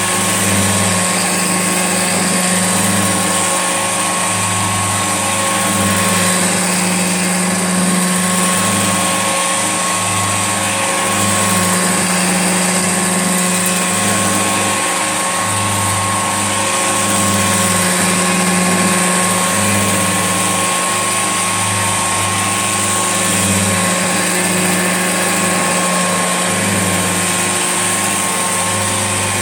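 Old Hoover Junior upright vacuum cleaner running steadily, a constant whine over a low hum that waxes and wanes.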